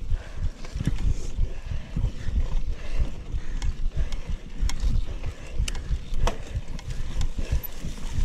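Mountain bike ridden over a rough forest trail: tyres rumbling and thudding over bumps, with sharp rattles and clicks from the bike throughout.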